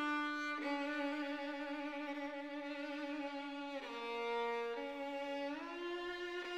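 Background music: a slow violin melody of long held notes with vibrato, changing pitch every second or two.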